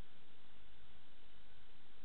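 Steady hiss and low rumble from a security camera's microphone, with a faint steady high whine and no distinct sounds.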